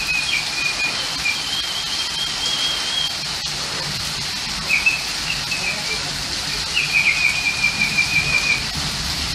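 Rain falling steadily in a thunderstorm, an even hiss. Over it come four high, wavering whistle-like trills, each lasting one to two seconds.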